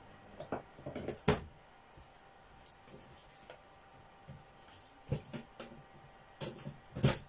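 Scattered knocks and clatter of things being handled and set down on a kitchen counter, in small clusters, the loudest about a second in and near the end.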